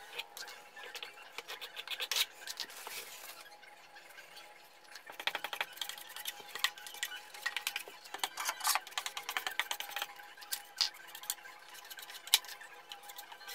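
Metal drywall knife scraping joint compound in a metal mud pan and along the wall: quick, irregular metallic scrapes and clicks in clusters, with one sharper clack near the end.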